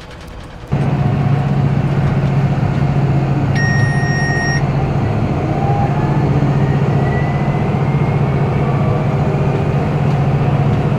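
Deutz-Fahr 6165 TTV tractor's six-cylinder engine running steadily, heard from inside the cab, coming in about a second in. About four seconds in, a single electronic beep sounds for about a second.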